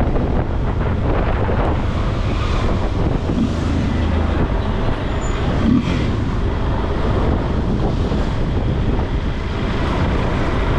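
Yamaha Lander 250's single-cylinder engine running steadily under way, with wind buffeting the microphone.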